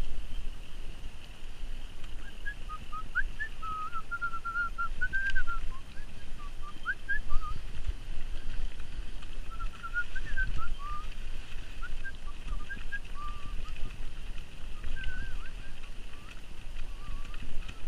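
Mountain bike rolling down a muddy dirt trail: a fluctuating low rumble from the tyres and bike over the ground, under a steady high hiss. Through the middle runs a series of short, high chirping notes that waver up and down.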